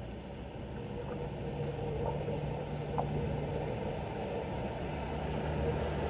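A low steady rumble with a faint hum, slowly growing louder, with a few faint ticks.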